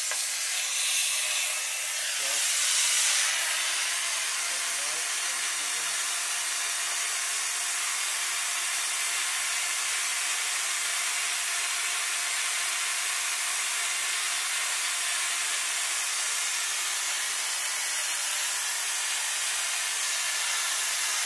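Dental high-volume suction running in a patient's open mouth: a steady airy hiss, a little louder about two to three seconds in.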